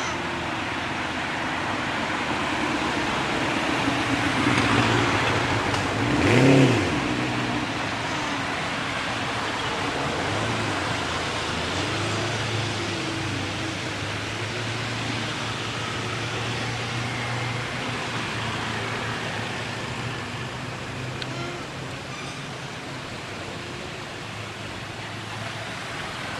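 Motor vehicle noise: a steady engine hum with road noise, swelling as a vehicle passes, loudest about six and a half seconds in.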